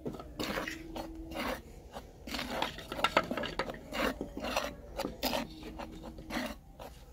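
Metal spoon stirring a dry mix of gram flour, cornflour and ground spices in a glazed clay bowl, scraping and clinking against the bowl in quick, irregular strokes.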